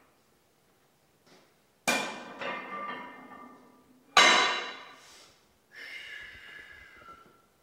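Gym weights clanking metal on metal: two loud clanks about two seconds apart, each ringing out for about a second, then a fainter, longer ringing sound near the end.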